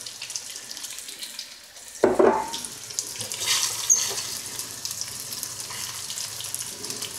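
Beef stock being poured into the hot sauce pan: a steady running-liquid sound, with a louder knock or splash about two seconds in.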